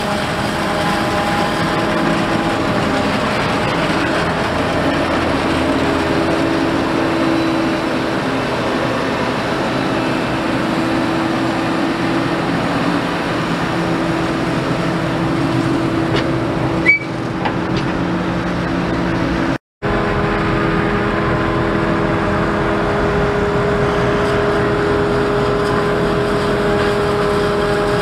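Claas Jaguar 860 forage harvester chopping maize alongside tractors hauling silage trailers: a loud, steady mechanical drone from the engines and chopper with several steady hum tones. The sound breaks off for a split second about two-thirds of the way through.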